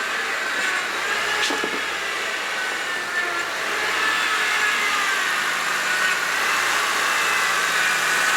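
Car engine running steadily at idle, with a faint high whine that wavers slightly in pitch and a single short click about a second and a half in.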